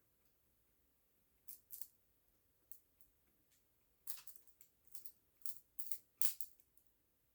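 Rosin-cored liquid solder paste crackling and spitting as it is heated at a solder joint: short, irregular high-pitched crackles, a few at first and then a quicker cluster after about four seconds.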